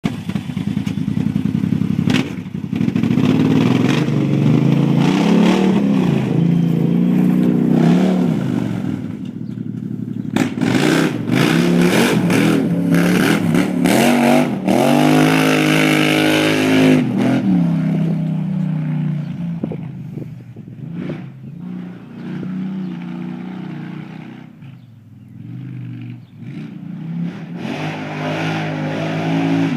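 John Deere Gator RSX850i side-by-side's V-twin engine through a Big Gun aftermarket exhaust, revved up and down again and again, with the longest climb and drop in pitch around the middle and a quieter idle-like stretch before it picks up again near the end.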